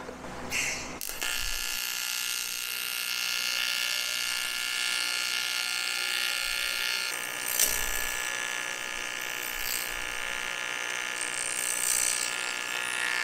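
AC TIG welding arc on cast aluminum from a Rockmount Neptune TIG welder set to about 150 amps at 60 Hz AC frequency: a steady electric buzz with many stacked tones. It starts about a second in after a brief burst.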